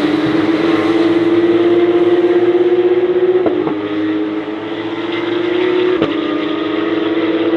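Porsche 911 GT3 Cup (992) race car's 4.0-litre flat-six engine running at full throttle, its pitch climbing steadily. The pitch drops sharply at a gear change about halfway through, and a sharp click comes about six seconds in.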